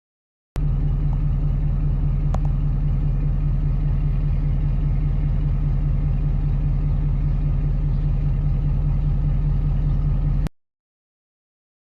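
An engine running at a steady speed with a strong low rumble, starting abruptly about half a second in and cutting off abruptly near the end, with a single click about two seconds in.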